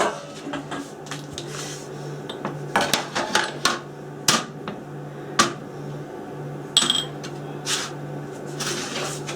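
Ceramic ramekins being set down and moved about on a baking tray: a string of clinks and knocks, one of them ringing briefly about seven seconds in.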